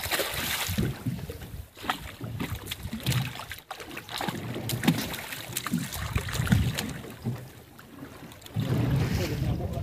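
Wind buffeting the microphone on a fishing boat at sea, in gusts with a low rumble, over small clicks and knocks from the deck and line. A hooked banang fish splashes at the surface alongside the hull right at the start as it is hauled up out of the water.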